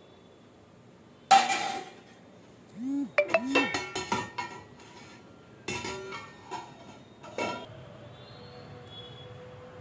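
Steel spoon and lid clanking against a stainless steel pot: a loud ringing clang about a second in, then a run of clinks and knocks as the lid is set on the pot.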